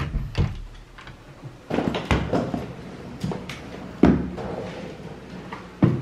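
A lever door handle clicks and a door opens, followed by a run of knocks and thuds as a suitcase is handled and bumped, with the two loudest thuds about four seconds in and near the end.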